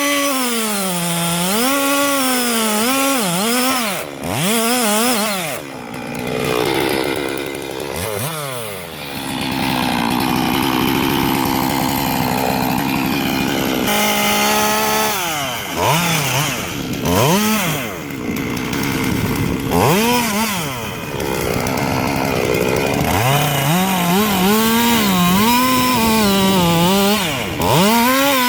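Chainsaw engine revved up and down over and over, its pitch rising and falling with the throttle, with a longer steady high run in the middle as it cuts into wood.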